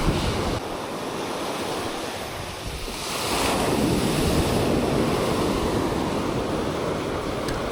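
Ocean surf washing onto the beach, with wind buffeting the microphone; a wave swells louder about three seconds in.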